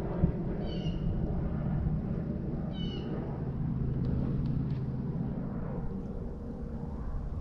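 Steady low hum of a boat motor, with two short high-pitched animal calls, most likely a bird, about two seconds apart near the start.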